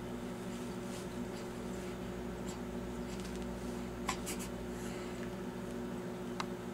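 Steady low hum of room tone made of several constant tones, with a couple of faint clicks about four and six and a half seconds in.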